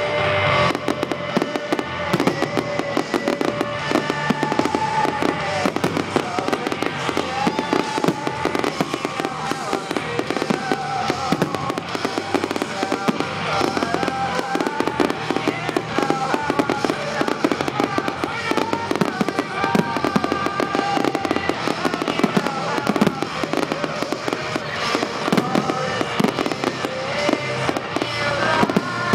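Fireworks display with rapid, continuous bangs and crackles of bursting shells, over accompanying music.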